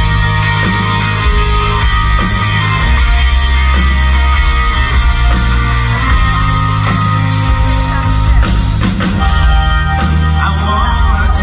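Live rock band playing loud through a concert PA, with electric guitars and a steady beat. The lead singer's voice comes in near the end.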